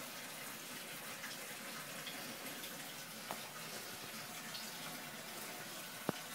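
Quiet, steady hiss of background noise, with a faint click about three seconds in and a sharper tick near the end.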